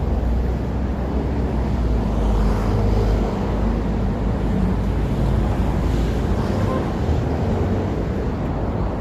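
City street traffic: the low rumble of passing vehicles, heaviest in the first three seconds and then easing to a steady drone.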